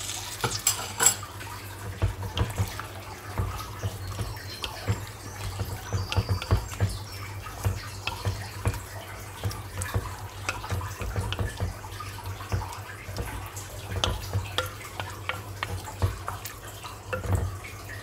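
Utensil stirring meat in watery gravy in a cooking pot: irregular clinks and scrapes against the pot, with the liquid sloshing.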